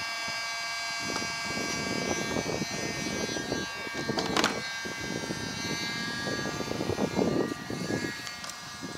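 Handheld electric heat gun running steadily, its blower giving a thin, even whine, used to melt plastic filler into holes in a polyethylene kayak deck. Irregular rustling sits underneath, with a sharp knock about four seconds in.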